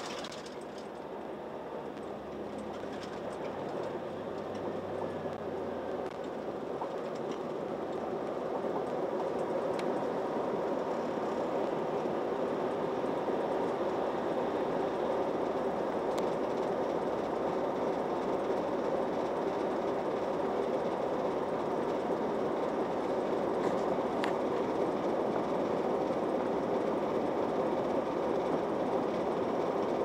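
Steady mechanical noise inside a city bus, its engine running. It grows louder over the first several seconds and then holds steady while the bus stands still.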